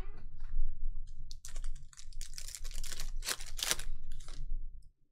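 Foil trading-card pack wrapper crinkling and tearing as it is ripped open by hand, a dense run of crackles from about a second in until near the end.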